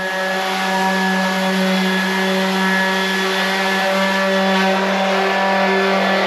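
A small handheld electric power tool running at a constant speed against the edge of an aluminum sheet panel on a steel frame, giving a steady pitch with a hiss over it.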